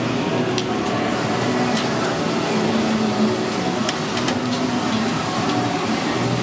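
Busy food-hall ambience: a steady hum of ventilation and background noise with indistinct distant voices and a few light clinks.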